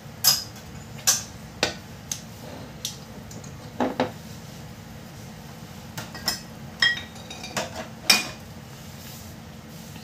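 Wooden spoon knocking and clinking against the sides of a stainless steel pot while stirring chili garlic oil sauce. There are about a dozen sharp, irregular knocks, a few with a brief metallic ring.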